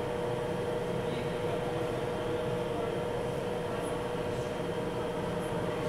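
Steady machine hum with a constant mid-pitched tone, even in level throughout, with faint voices in the background.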